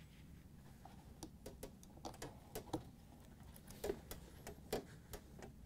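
Faint, irregular small clicks and taps of a short Phillips screwdriver turning screws into the dishwasher solenoid's metal bracket, starting about a second in.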